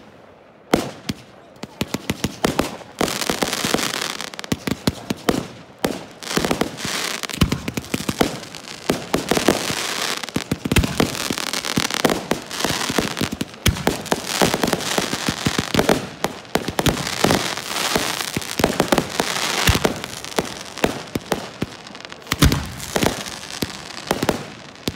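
Fireworks display: aerial shells bursting one after another. From about three seconds in, a steady crackle runs between the bangs.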